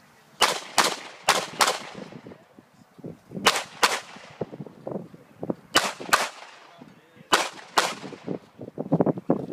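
Pistol fire during a USPSA stage run: about ten sharp shots in quick pairs, with two pairs back to back at the start and then a pair every two seconds or so.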